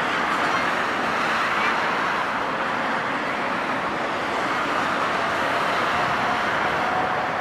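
Steady road traffic noise, an even rushing hiss of vehicles with no sudden events.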